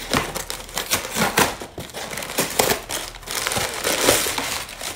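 A cardboard mailer box being torn open along its strip, then crinkly brown kraft packing paper crumpled and pulled aside: a dense run of crackles, rips and rustling, loudest near the end.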